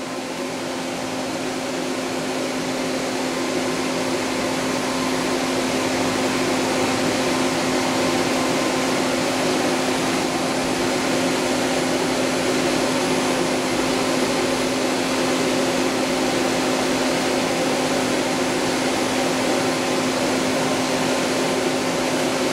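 Steady whirring drone of an electric motor moving air, with a constant hum running through it; it builds up over the first few seconds, then holds level.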